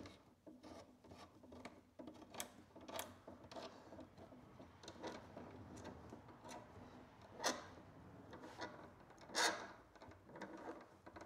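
Faint scraping and clicking of a twist-on wire nut being screwed down onto twisted 10-gauge copper conductors in a metal electrical box, with two louder scrapes, one a little past halfway and one near the end.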